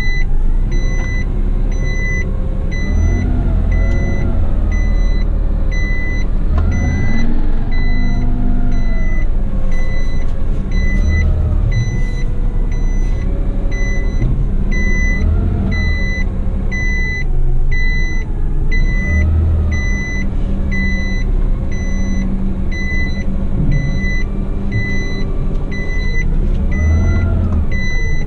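Garbage truck's reversing alarm beeping steadily, about three beeps every two seconds, heard from inside the cab. Under it the truck's diesel engine runs and revs up and down as the truck manoeuvres.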